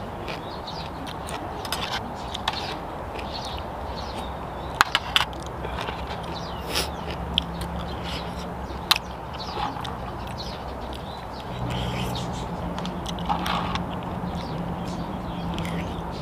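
Someone eating blood cockles: chewing and mouth noises with a few sharp clicks of the shells, mostly around the middle. Under it runs a low steady hum that gets louder about two-thirds of the way through.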